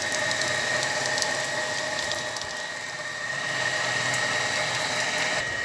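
Water running steadily and splashing onto a wet concrete floor, with a steady machine hum beneath it.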